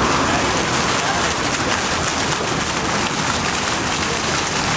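Fountain water jets spraying up and splashing back into a pool: a steady rushing splatter of falling water.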